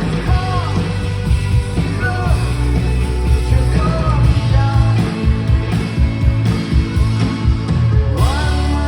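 Live rock band playing, with a sung lead vocal over a pounding drum beat, bass and guitars. About eight seconds in the drumming stops and a low chord rings on.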